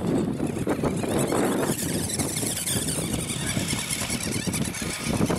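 WPL C24 1/16 RC rock crawler's electric motor and gearbox whining under load as it drives over dirt, labouring: the truck is struggling for power.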